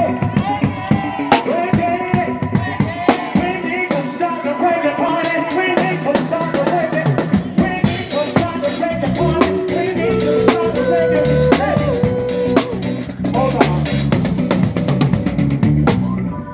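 Live band playing, with a drum kit's snare, rimshots and kick drum keeping a steady beat under a melody line.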